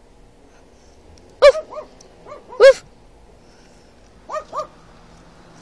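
About six short barks in three clusters, two of them much louder and closer than the rest: a person imitating a dog's bark and a dog inside a car barking back through the window glass.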